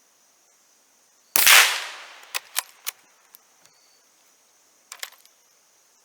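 A single shot from a Savage B22-V .22 rimfire rifle about a second and a half in, followed by three sharp metallic clicks of the bolt being worked. Near the end there is another short clatter of the action, which the shooter attributes to a slight double feed, a second cartridge catching behind the first.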